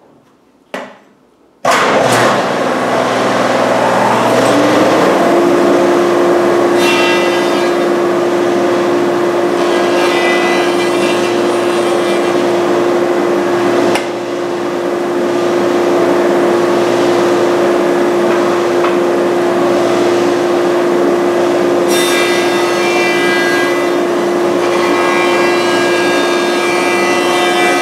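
An 8-inch jointer switches on about two seconds in, its motor spinning up to a steady whine. The cutterhead then face-joints a rough walnut board in repeated passes, the cutting noise swelling and easing over the steady motor.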